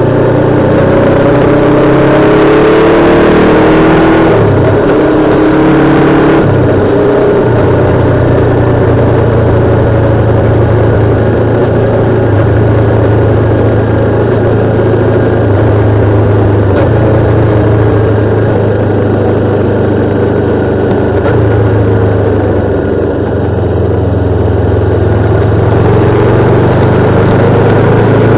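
Motorcycle engine ridden hard: its note climbs in pitch over the first several seconds, broken by two upshifts about four and six and a half seconds in. It then runs at a steady, fairly constant speed, easing off briefly about three-quarters of the way through before picking up again.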